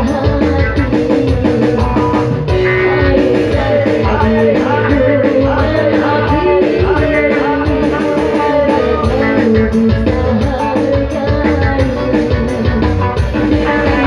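Live dangdut band music: a steady drum beat with guitar and other instruments, and a female singer's voice over it.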